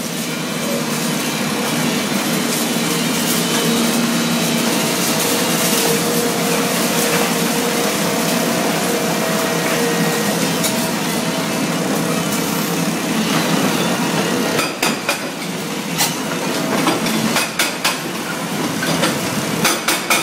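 Excavator-mounted CMB hydraulic breaker hammering concrete in a fast, steady rattle, with the excavator's engine running underneath. About two-thirds of the way in, the rattle breaks up into separate sharp knocks and clinks of steel on concrete.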